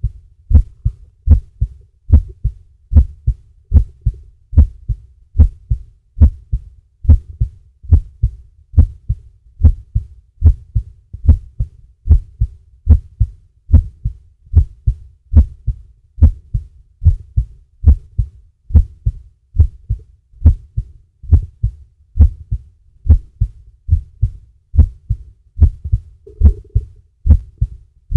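Amplified recording of a human heartbeat: deep, loud paired thumps in a steady lub-dub rhythm, about one beat a second, playing on without a break.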